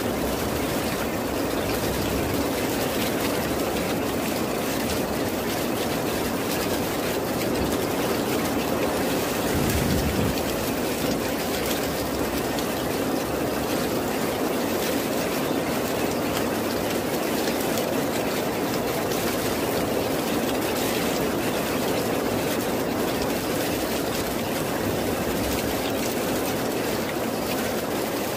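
Steady rain, an even wash of noise with no breaks, with a brief low swell about a third of the way through.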